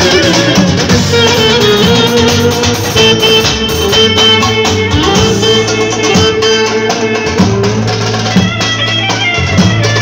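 Loud Turkish Romani wedding dance music: a melody of held and ornamented notes over a bass line and a steady beat.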